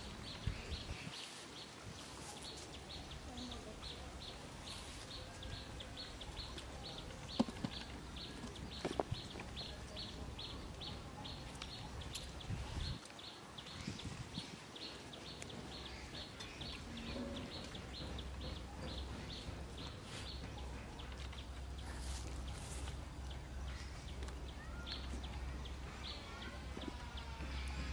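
A steady series of short high chirps, about two to three a second, from a small creature calling outdoors, with a low wind-like rumble in the second half and a few faint clicks.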